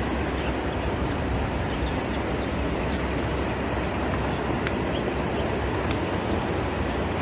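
Wind blowing across a phone microphone: a steady rushing noise, heavy in the low end.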